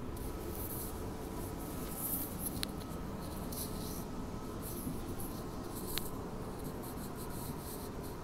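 Cabin noise of a moving electric commuter train: a steady rumble with faint steady tones. Scratchy rubbing from the filming phone being handled runs over it, with two short clicks, one about a third of the way in and one about three-quarters in.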